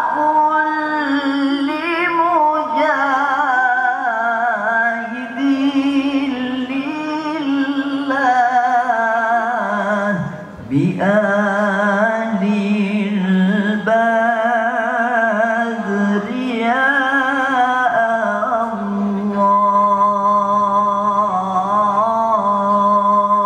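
A qari's solo male voice chants unaccompanied into a microphone in the ornamented melismatic style of Quran recitation. He holds long notes with a quivering vibrato and winding runs, and takes one short breath about ten seconds in.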